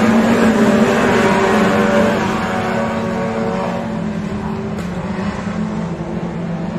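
Racing sedans' engines running hard around a dirt speedway track, several cars at once, loud at first and fading gradually after about two seconds.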